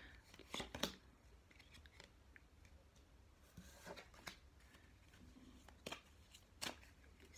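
Tarot cards being handled off-camera: a few soft clicks and rustles at intervals, heard over a faint low hum.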